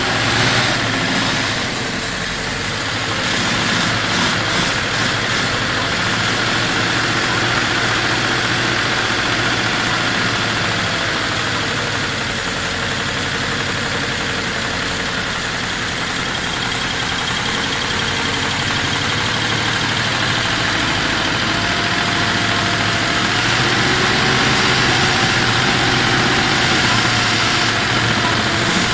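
Triumph Stag's 3.0-litre V8 idling steadily, running again after long storage as a barn find.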